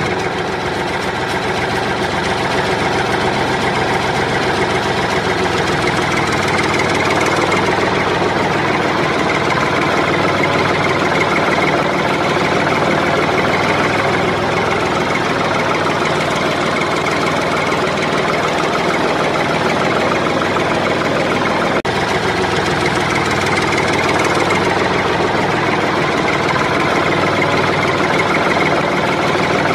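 Engine running steadily at an even level, like a tractor idling.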